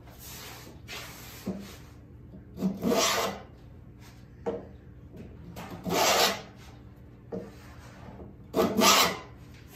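A hand tool cutting wood in three strokes, each just under a second long and about three seconds apart, each with a short light knock before it. It is taking material off the inside of a walnut picture-frame piece to enlarge the opening.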